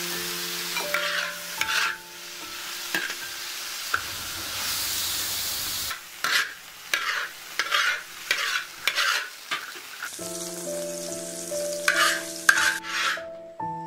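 Green soybeans, minced meat and red chillies stir-frying in a large wok: a steady sizzle with repeated scrapes and tosses of a metal spatula, about two strokes a second through the middle. The frying sound cuts off suddenly near the end.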